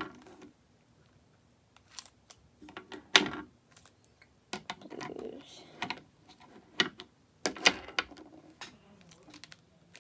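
Plastic markers clicking and knocking against each other and the desktop as they are handled and set down one by one, in uneven sharp clicks every second or so.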